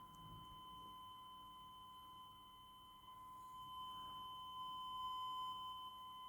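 Faint, steady 1 kHz sine test tone from a home-built audio test set's oscillator, with weaker overtones above it. It swells a little about four seconds in.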